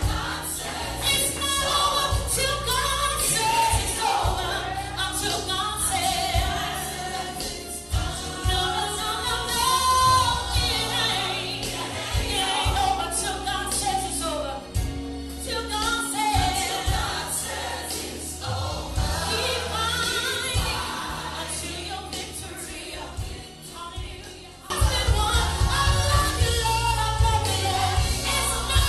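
Gospel music with choir singing over a steady bass line; it dips quieter a few seconds before the end, then comes back louder.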